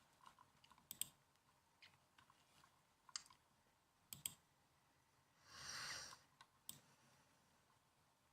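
Faint, scattered laptop keyboard key clicks, single taps and pairs about a second apart rather than continuous typing. A soft rushing whoosh lasts about a second, starting about five and a half seconds in.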